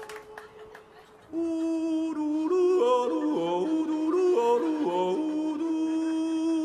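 A boy yodeling: after a quiet first second, a single voice flips back and forth between low and high notes in quick jumps.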